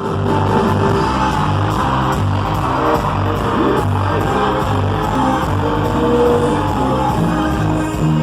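Loud music with a steady beat and a pulsing bass line.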